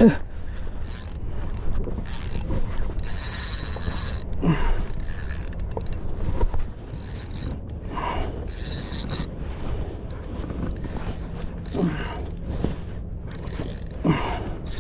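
Spinning reel being cranked, winding line back in on a retrieve, with a few short knocks along the way.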